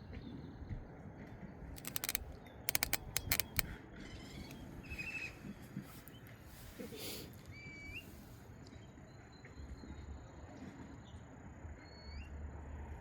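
Outdoor lakeside ambience: a steady low rumble with a few short, rising bird chirps, and a quick run of sharp clicks about two to three and a half seconds in. A thin, steady high whine joins about nine seconds in.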